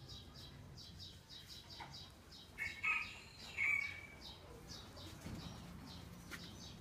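Birds chirping: a short high chirp repeats about four times a second, with two louder calls about three seconds in.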